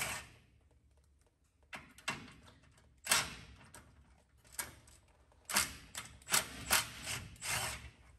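A cordless power tool with a socket runs in short, irregular bursts with sharp metallic clicks, loosening a bolt on the fuel filter bracket. The bursts come closest together in the last few seconds.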